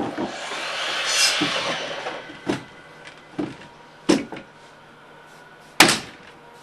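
Nailing down tongue-and-groove porch floor boards with a flooring nailer: a rushing hiss that swells and fades over the first two seconds, then four separate sharp knocks, the last and loudest near the end.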